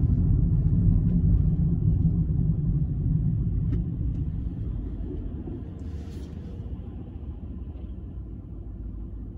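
Low road and engine rumble of a car heard from inside the cabin, dying away as the car slows to a stop, then a quieter steady rumble while it stands.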